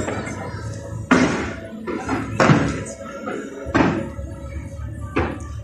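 Fireworks exploding in four loud bangs, spaced a little over a second apart, over music and a steady background din.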